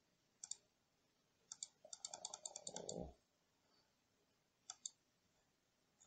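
Computer keyboard keystrokes and mouse clicks: a few single clicks, then a quick run of keystrokes about two seconds in with a brief low murmur beneath it, and a couple more clicks near the end.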